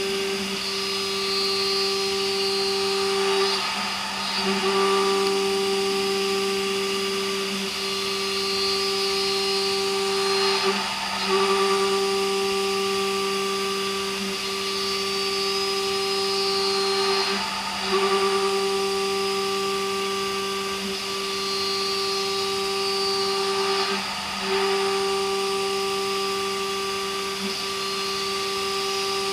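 CB Ferrari GT2000 CNC milling machine cutting H13 tool steel: a steady pitched cutting tone with overtones that breaks briefly about every three and a half seconds, as each cutting pass ends and the next begins.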